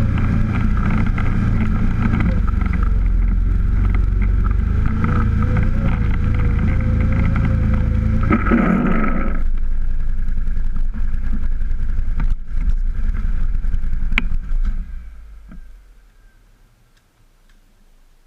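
A motor vehicle's engine runs steadily while driving, with a wavering whine over the drone. Its note changes abruptly about nine seconds in, and the sound dies away around fifteen seconds in.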